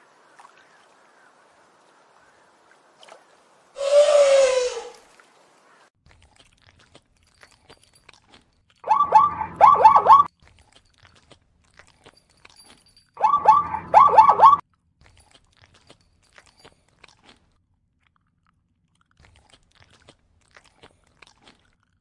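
A short rough elephant call, falling in pitch, about four seconds in. Then plains zebras barking: two bouts of four or five quick yelping calls each, a few seconds apart, with faint crunching of hay being chewed between them.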